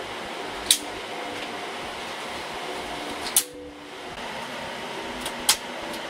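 A rack server being pulled out on its metal slide rails: three sharp clicks or knocks, about a second in, midway and near the end. Under them runs the steady fan hum of the servers still running in the rack.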